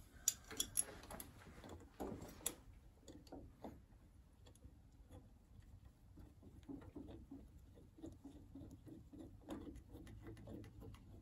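Faint, irregular metal clicks and taps of bolts and a steel boost pipe being handled and fitted by hand onto a supercharger manifold, with a few sharper clicks in the first couple of seconds.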